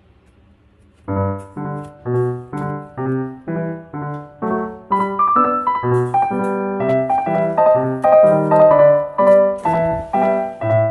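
Background piano music: after a brief pause, a piano plays a line of separate notes, about two a second, with fuller chords joining about five seconds in.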